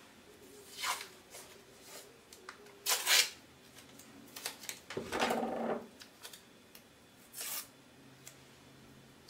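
Blue painter's tape being pulled off the roll and torn into short strips: a few short rasping rips, the loudest about three seconds in, with a duller rustle of handling around five seconds.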